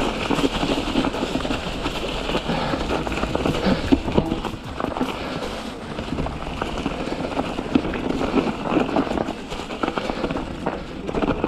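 Mountain bike descending a rocky trail: tyres, chain and frame rattling over rocks in quick, irregular knocks and clatter.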